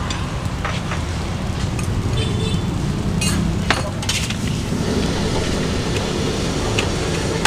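A metal spatula clinking and scraping against a steel wok as fried rice is stirred and tossed, with a few sharp clinks about three to four seconds in, over a steady low rumble.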